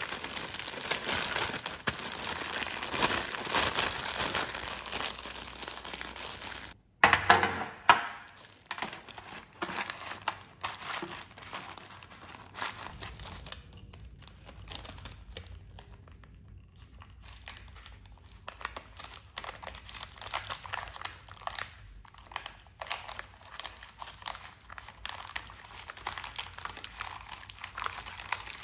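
Baking parchment paper crinkling and rustling as it is rolled and handled around a sponge cake, in irregular crackly bursts. The sound cuts out abruptly about seven seconds in, comes back at its loudest, and is quieter for a few seconds in the middle.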